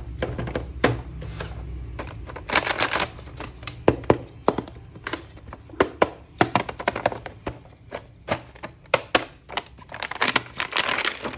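Plastic toy packaging crinkling and rustling as an action figure is handled and unwrapped, with many sharp clicks and knocks of plastic against plastic and a table.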